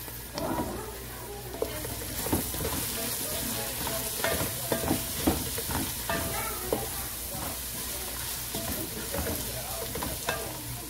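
Onions, carrots and peas frying in a metal pot, sizzling steadily, while a spatula stirs the spices in with repeated scrapes and knocks against the pot. The stirring and sizzle pick up about two seconds in.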